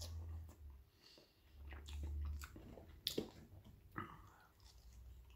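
A person chewing and biting on seasoned thick-cut chips, with a few short mouth clicks and two soft low rumbles in the first half.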